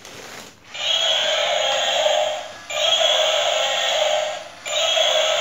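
Battery-powered toy dinosaur switched on, its sound chip playing an electronic sound through a small speaker. The sound starts just under a second in and repeats in stretches of about two seconds with short breaks between them.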